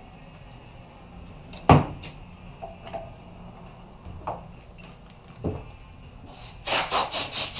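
Hand-pumped bottle-jack shop press being worked to press a bearing onto a transfer-case shaft: a sharp metal knock about two seconds in and two softer knocks later. Near the end comes a fast run of harsh strokes, about five a second.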